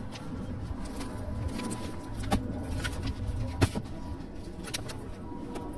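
Glossy magazines shuffled and flipped in a plastic storage tub, with two sharp clicks about two and a half and three and a half seconds in, over a low rumble of outdoor background noise.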